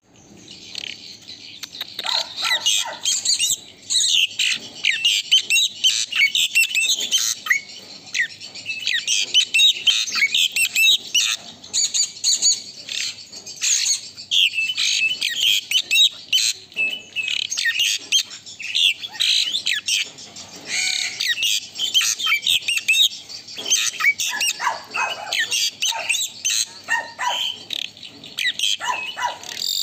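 Asian pied starling (jalak suren) in full song: a continuous, rapid stream of high chattering and squawking notes, mixed with some lower notes now and then.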